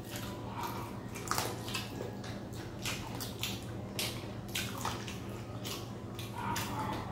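Close-up wet eating sounds: chewing and repeated sharp lip-smacks, with fingers squelching through curry gravy on a steel plate.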